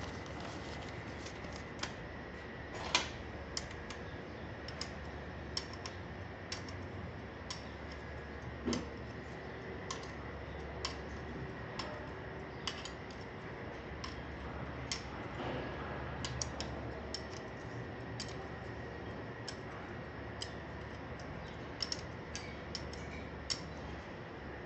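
Sharp metal clicks at irregular intervals, about one a second, as a spanner is fitted to and turned on the end-cover bolts of a hydraulic gear pump held in a vise, over a steady hum.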